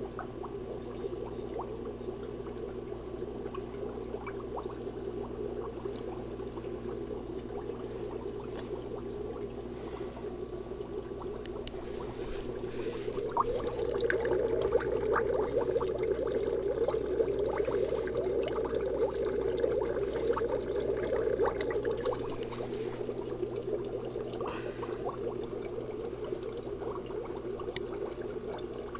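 Air-driven aquarium sponge filters bubbling: a steady burble and trickle of air rising through the lift tubes, louder for several seconds in the middle.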